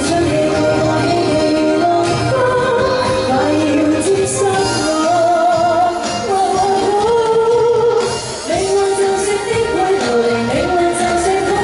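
A woman singing a Cantopop song live into a handheld microphone, amplified over musical accompaniment, with a held, wavering note on the melody.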